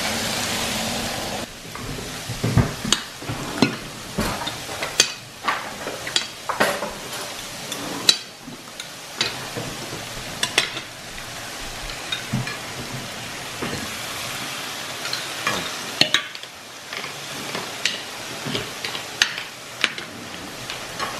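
Hot iron sizzle plate of beef and rice sizzling steadily for about the first second and a half, then forks and spoons clinking and scraping on plates many times, with a lower sizzle running underneath.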